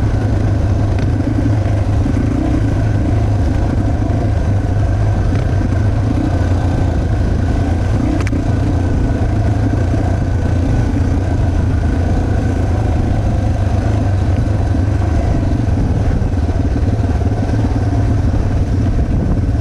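Yamaha TT-R230's air-cooled single-cylinder four-stroke engine running steadily under way on a dirt trail, heard close up from the rider's helmet camera.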